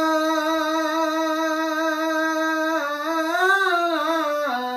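A lone unaccompanied voice singing a line of Punjabi Sufi verse (kalam), drawing out the last word in one long held note. About three seconds in, the voice rises and falls in a short ornament, then settles again.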